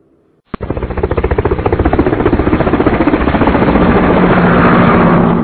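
Loud aircraft engine noise with a rapid, fluttering pulse, cutting in suddenly about half a second in and stopping abruptly at the end.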